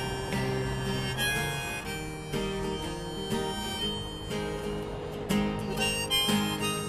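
Harmonica in a neck rack playing an instrumental break over a strummed acoustic guitar: a run of held and changing harmonica notes above steady strumming.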